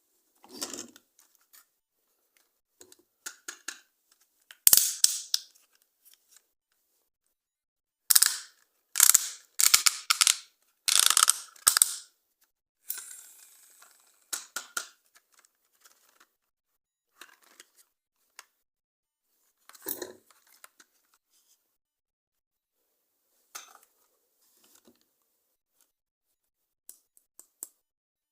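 Toy packaging and plastic toy parts being handled and opened by hand: scattered small clicks and rustles, with a run of loud rustling, tearing bursts about eight to twelve seconds in.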